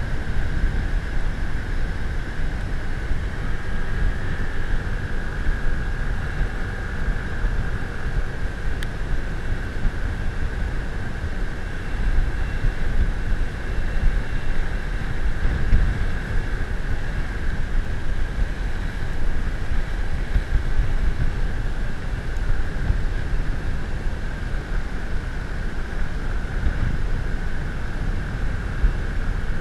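A moving vehicle heard during a ride: a steady engine and road drone with a constant high hum, overlaid by heavy wind rumble buffeting the microphone.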